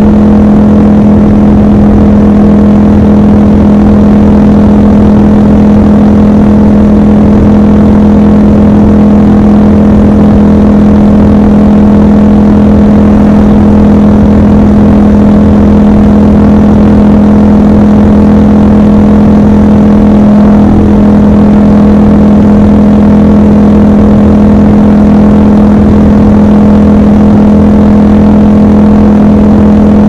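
Triumph Scrambler 1200 XC's 1200 cc parallel-twin engine running at a steady cruise on the motorway. It holds one unchanging engine note with a low rush underneath.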